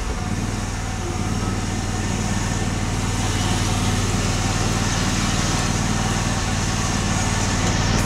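A riding lawn mower's engine runs steadily while the mower is driven, growing a little louder over the first few seconds.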